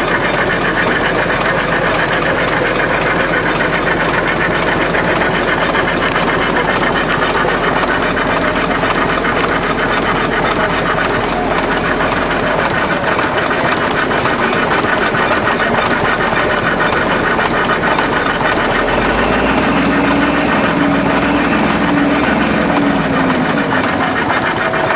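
Model vertical marine steam engine running on live steam: a steady, rapid hissing beat of exhaust steam. A lower hum joins near the end.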